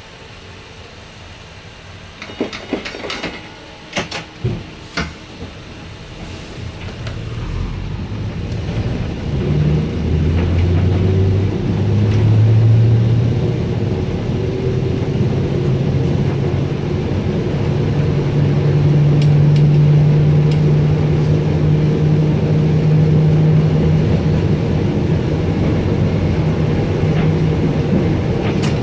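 Streetcar pulling away from a stop: a few sharp clicks and knocks, then its electric traction motors hum, rising in pitch as the car gathers speed and then holding steady as it runs along the rails.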